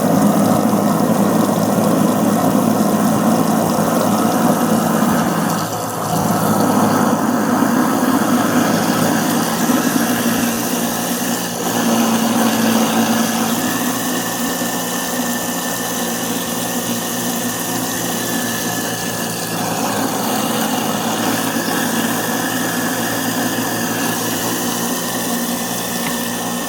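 Kitchen garbage disposal running with water in it, a steady motor hum with a wash of noise, working the disposal cleaner tablets through to clean it out. It dips briefly twice and settles a little quieter partway through.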